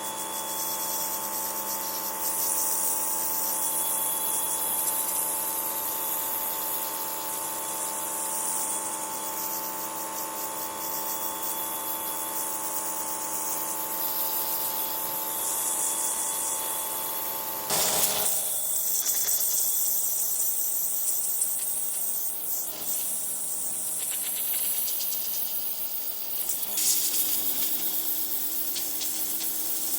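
Pressure washer running, its water jet hissing against the patio while the machine gives a steady hum with a held tone. About eighteen seconds in the hum stops and the hiss goes on, changing in level.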